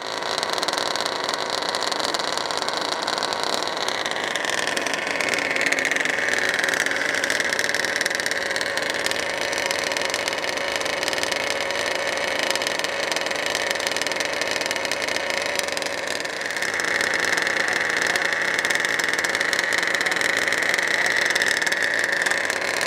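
Twin-cylinder two-stroke engine of a large-scale Baja RC buggy running with a steady, high-pitched note. The note steps up about five seconds in, eases back, and steps up again about sixteen seconds in.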